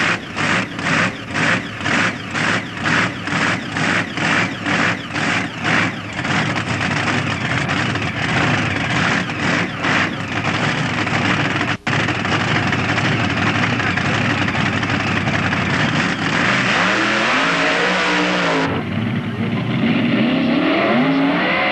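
Alcohol-and-nitrous-injected 572 cubic-inch big-block Chevy V8 of a mud racer, revved in sharp blips about twice a second, then held at high revs continuously for about ten seconds. Near the end its pitch rises and falls in sweeps as the throttle is worked.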